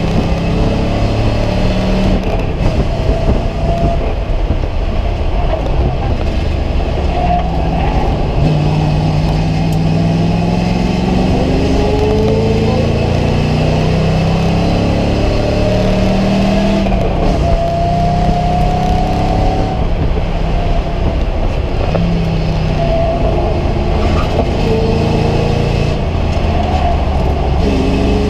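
Race car engine heard from inside the stripped cabin, running hard on track. Its pitch climbs in long rises and drops back several times as the car accelerates and slows, over steady road and wind noise.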